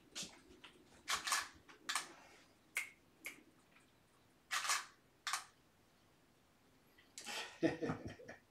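DSLR camera shutter firing about seven times in five seconds, some shots in quick pairs. About seven seconds in comes a longer, louder stretch of handling noise as the camera is lowered.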